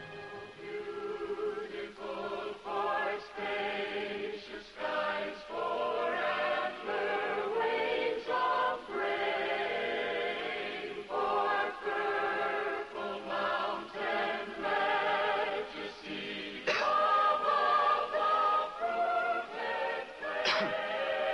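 A mixed choir singing sustained notes with vibrato, the sound swelling louder about three-quarters of the way through.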